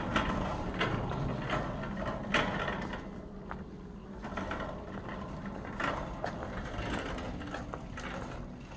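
Wire shopping cart rattling and clicking as it is pushed along, with irregular knocks that are louder in the first few seconds.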